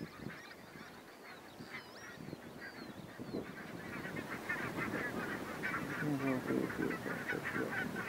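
A large flock of barnacle geese calling, a dense chatter of many short overlapping calls that grows louder toward the end.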